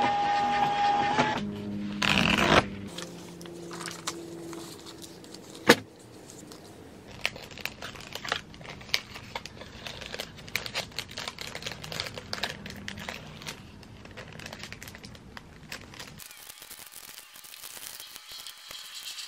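A printer running briefly at the start, then hands packing small orders: paper and plastic packaging rustling, with many small clicks and taps and a sharp knock about six seconds in.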